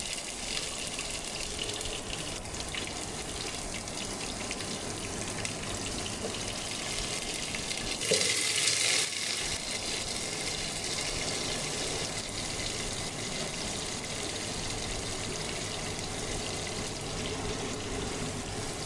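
Cut shallots sizzling in hot coconut oil with mustard seeds and urad dal in a steel pot: a steady frying hiss that briefly flares louder about eight seconds in.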